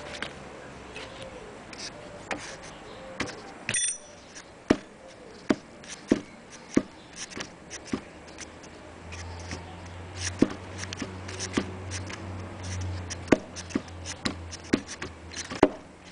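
Irregular sharp clicks and clinks of a wrench and the metal fittings of a Citroën 3CV brake hose being handled, with one brief ringing metallic clink about four seconds in.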